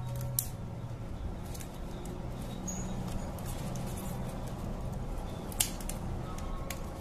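Realme C3 display panel being pried off its plastic frame with a thin pry tool: small scraping and clicking noises as the tool works along the edge, with a sharp click about half a second in and a louder snap a little over five seconds in.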